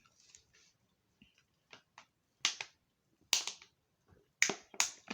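Close-up mouth sounds of someone eating crispy fried food: a few faint wet ticks, then sharp crisp crunches a couple of seconds in, coming faster toward the end.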